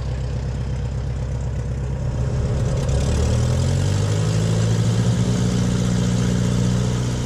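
Pitts S-1S aerobatic biplane's four-cylinder Lycoming engine and propeller running at low power on the ground. About three seconds in the engine speeds up and then holds at a higher, steady pitch.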